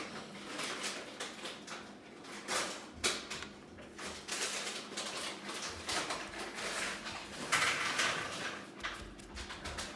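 Rustling and scraping handling noises from painting at a table, brush and supplies being moved, with a few louder scrapes, one about two and a half seconds in and one about seven and a half seconds in.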